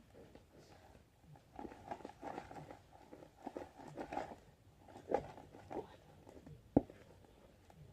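Sticky homemade glue slime being pulled and squished by hand, giving irregular small sticky crackles and rustles, with one sharp click about seven seconds in.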